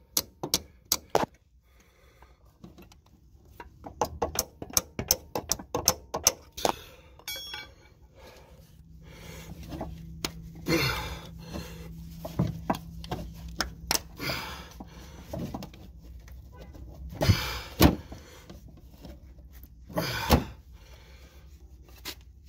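Hammer striking a steel pry bar wedged into the old transaxle axle seal, to drive it in and pry the seal out. Quick runs of light metallic taps in the first seven seconds, then a handful of heavier, spaced blows.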